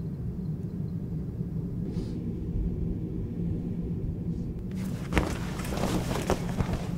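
A steady low hum, with a burst of rustling and clicks from about five seconds in as a person gets up and moves with clothing and a shoulder bag.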